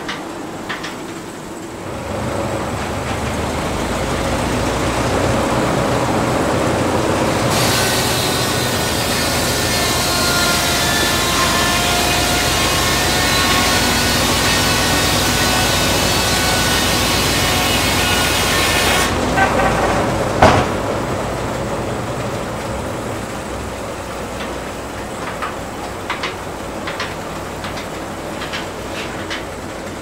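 Antique sawmill running, its circular head saw cutting through a log for about ten seconds with a bright ringing whine over the machinery's rumble. A single loud knock about twenty seconds in, then the mill keeps running with scattered clanks.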